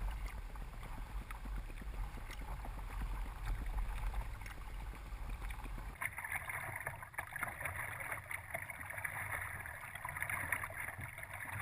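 River ambience: a steady hiss of flowing water with a few small clicks. A low wind rumble on the microphone drops away abruptly about halfway through.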